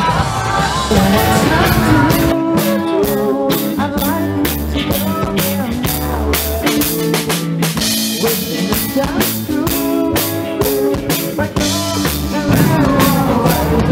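Live band playing: electric guitar and bass guitar over a drum kit keeping a steady beat.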